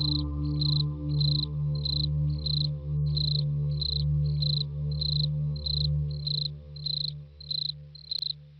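Cricket chirping evenly, about two chirps a second, over a low steady drone that fades away near the end.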